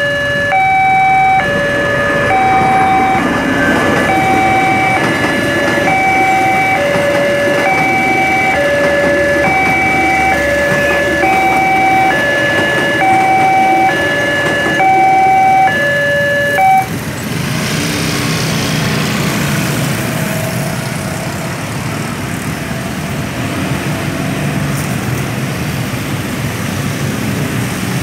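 Level-crossing warning alarm sounding an alternating two-tone electronic chime, about one change of tone every second, over the rumble of a passing passenger train. The alarm cuts off suddenly about 17 seconds in, leaving the engines of a crowd of motorcycles and scooters pulling away across the crossing.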